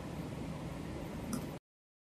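Steady airliner cabin noise, a low rumble with hiss from the air-conditioning and aircraft systems on the ground, which cuts off abruptly about one and a half seconds in.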